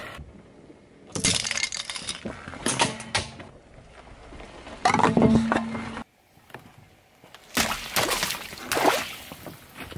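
A car tyre crushing small objects one after another, with crackling and crunching. A metal candy tin is crunched flat about five seconds in. Near the end, water balloons burst and splash under the wheel.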